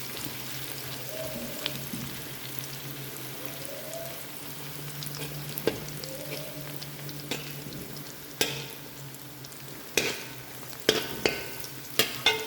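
Sliced sausage, garlic and onions sizzling steadily in oil in a frying pan while being stirred. In the last few seconds come several sharp clacks, a utensil striking the pan.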